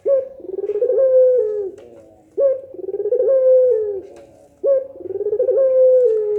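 Puter pelung (Barbary dove) cooing: three long calls, each beginning with a sharp rising note, then a quick rolling stretch, then a long held note that falls away at the end.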